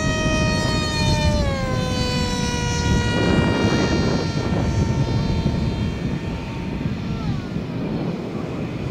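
ZOHD Orbit flying wing's electric motor and propeller whining as a high steady tone. The pitch drops about a second and a half in as the throttle comes back, then fades, and it drops again near the end. Wind rumbles on the microphone underneath.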